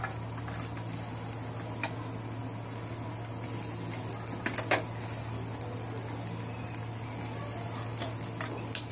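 Chicken tikka grilling on metal skewers over a charcoal grill: a steady sizzling hiss with a constant low hum, broken a few times by sharp clicks of the skewers knocking together as they are turned, the loudest about halfway through.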